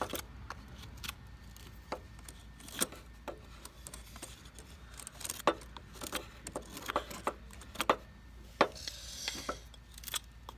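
Knife blade whittling a piece of wood, cutting and shaving it into a spoon handle: short, irregular slicing clicks, with a longer scrape about nine seconds in.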